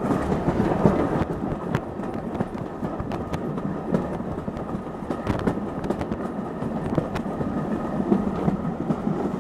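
Steam-hauled passenger carriage running along the line: a steady rumble of wheels on the track, with irregular clicks from the rails.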